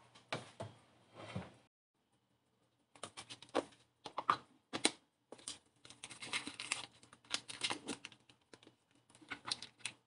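Irregular clicks, taps and rustling of hands handling plastic dishware in the rack and the detergent dispenser in a tabletop dishwasher's door, with a short pause about two seconds in.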